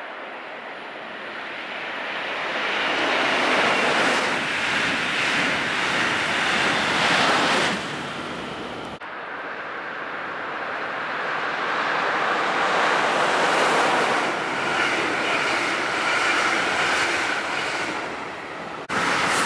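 Electric trains passing on the main line below, a steady rushing of wheels and air that swells over a few seconds, with a faint steady whine in the later part. The sound breaks off abruptly about nine seconds in and again near the end.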